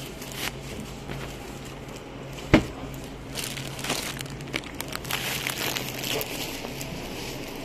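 Plastic bag of flatbread crinkling as it is handled, in irregular crackly bursts, with a single sharp click about two and a half seconds in.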